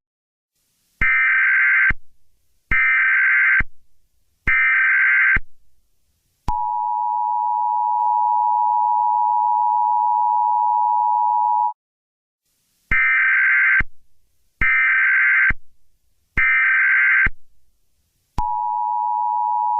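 Emergency Alert System tones. Three digital SAME header bursts, each just under a second, are followed by the two-tone EAS attention signal held steady for about five seconds. Three more header bursts follow, and the attention signal starts again near the end. These tones announce an emergency alert broadcast.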